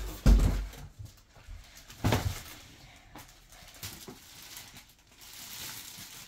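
Plastic-wrapped hard-shell carry-on suitcase being lifted out of its cardboard box and set down. A heavy thump comes just after the start and a sharper knock about two seconds in, with the plastic wrap rustling.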